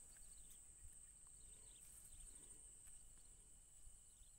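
Quiet outdoor ambience: a faint, steady, high insect drone, with a few faint short bird chirps.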